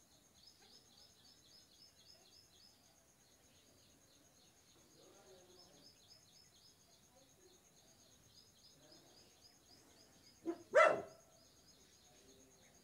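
A dog barks twice in quick succession near the end, a short bark then a longer, louder one, the loudest sound here. Faint, rapid high-pitched chirping runs underneath.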